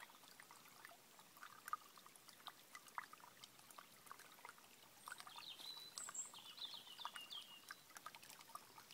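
Small stream trickling and babbling over stones, faint, with many small splashy ticks. A songbird sings a few short phrases from about five seconds in.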